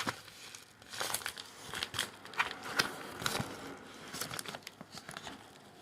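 Packaging of a mailed parcel crinkling and crackling as it is handled, in irregular short rustles.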